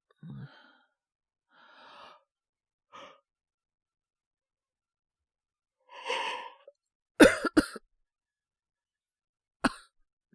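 A man acting a bad cold with a high fever: a few laboured breaths and a heavy exhale, then two sharp coughs in quick succession about seven seconds in and a single short cough near the end.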